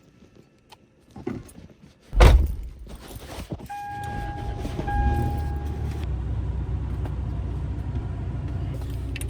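Keys jangling and a loud thump about two seconds in, then two long electronic chime tones from a car and a car engine starting and settling into a steady low idle.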